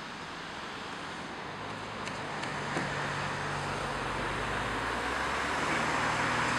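A road vehicle approaching, its engine hum and tyre noise growing steadily louder, with a few faint ticks about two to three seconds in.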